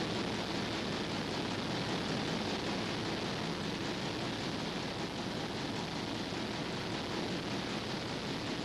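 Steady, even hiss-like noise with no distinct knocks, clicks or tones.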